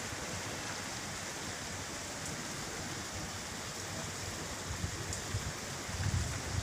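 Steady monsoon rain falling, an even hiss, with a few low gusts of wind buffeting the microphone near the end.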